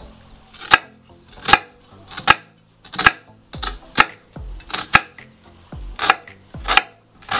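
Chef's knife dicing an onion on a wooden cutting board: about a dozen separate, sharp knocks of the blade striking the board, a little more than one a second.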